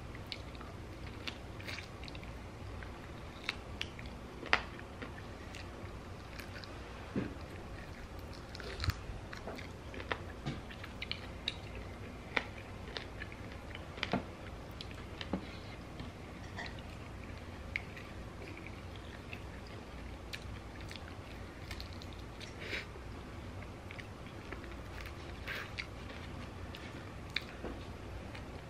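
Eating chicken wings: chewing and biting, with short sharp smacks and clicks scattered throughout as the meat is pulled from the bone.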